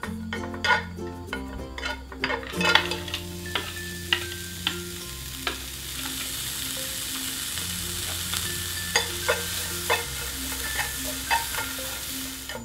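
Food sizzling as it fries in a pan, a steady hiss that builds up a couple of seconds in, with utensils clicking and scraping against the pan as it is stirred. Light background music plays underneath.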